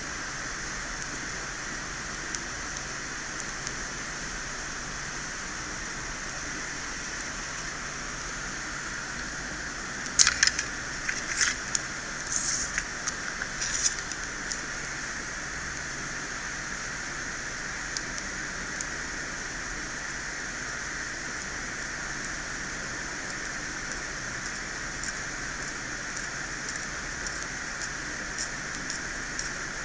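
Small metal hand-tool clicks and scraping, a blade working on a phone logic board, in a short cluster about ten to fourteen seconds in, over a steady hiss.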